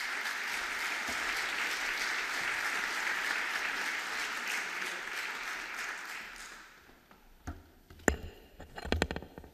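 Audience applauding, dying away after about six seconds. Then come a few knocks and thuds, the sharpest about eight seconds in.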